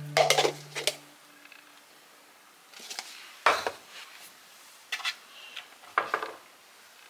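Plastic cups and tableware clattering as they are handled on kitchen cabinet shelves, in several short separate bursts, then a cabinet door knocking shut about six seconds in.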